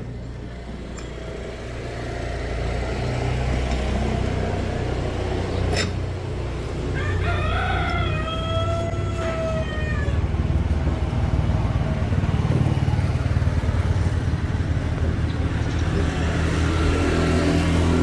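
A rooster crows once near the middle, a single long call of about three seconds, over a steady low rumble. There is a sharp click shortly before the crow.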